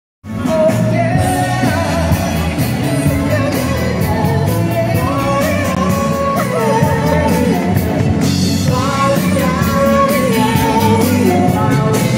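Live band playing amplified rock-style music with a lead singer over a steady beat.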